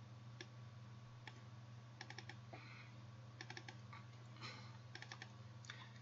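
Faint computer mouse clicks, in quick pairs and small runs, as folders and an image file are double-clicked open in a file dialog. A low steady electrical hum runs underneath.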